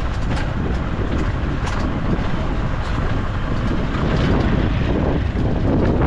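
Wind buffeting the microphone: a loud, uneven low rumble with a hiss above it.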